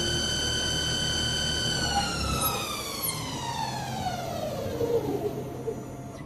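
CNC machine's electric spindle motor whining steadily at a high pitch, then winding down about two seconds in, its pitch falling steadily as it slows to a stop at the end of the hole-drilling program. A low rumble underneath cuts out shortly after the wind-down begins.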